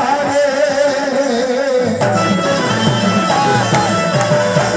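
Live Bangla qawwali: a man singing into a microphone with wavering held notes, over harmonium and hand-drum accompaniment.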